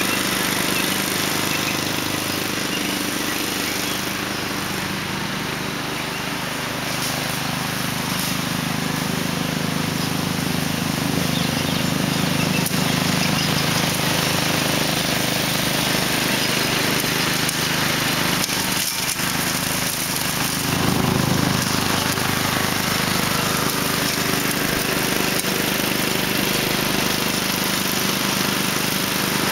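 Homemade ride-on mower's 14.5 hp Briggs & Stratton OHV engine running steadily as it drives across grass mowing. It gets a little louder about two-thirds of the way through.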